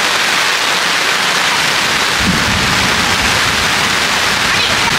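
Steady, loud rain falling, with a low rumble coming in about two seconds in.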